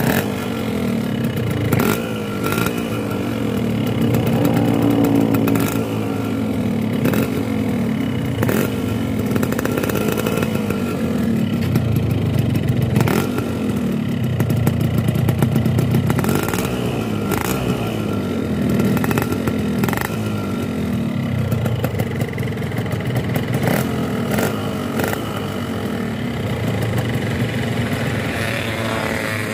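Two-stroke motorcycle engine running cold, idling through a Boban C33 aftermarket exhaust, with the revs rising and falling a few times.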